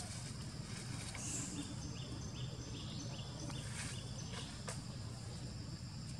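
Outdoor forest ambience: a steady drone of insects, a run of short repeated chirps in the middle, and a few brief rustles in dry leaves, over a constant low rumble.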